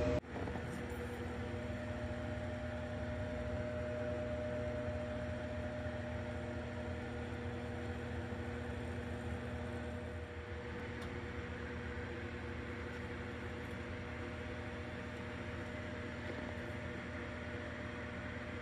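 Steady electrical hum with an even hiss and a few held tones over it; the mix shifts slightly about ten seconds in.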